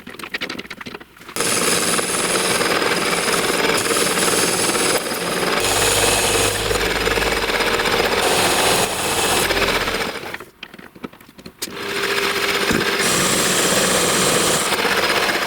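Power tool grinding metal, running loud and steady after a choppy start, with a short break about ten and a half seconds in before it carries on.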